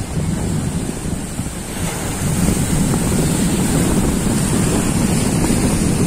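Sea waves breaking and washing over shore rocks, mixed with heavy wind rumble on the microphone; the surf grows louder about two seconds in.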